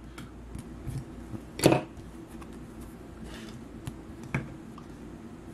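Trading cards being handled at a table, with one sharp click a little under two seconds in and two fainter clicks near the end.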